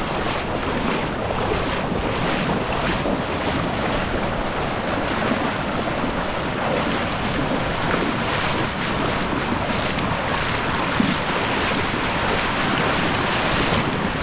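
Breaking surf and foaming seawater washing around in the shallows, with wind rumbling on the microphone.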